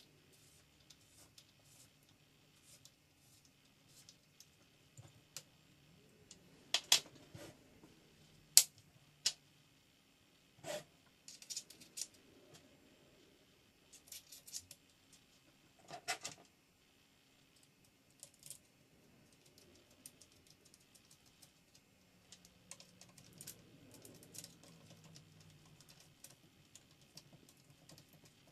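Scattered clicks and light metallic taps of small rifle parts and tools being handled while a folding stock adapter is fitted. A few sharper knocks stand out: several around a quarter of the way in, and single ones near the middle.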